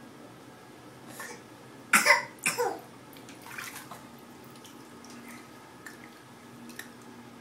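Two short, loud cough-like vocal bursts about two seconds in, half a second apart, each falling in pitch, with quieter splashing of bath water around them.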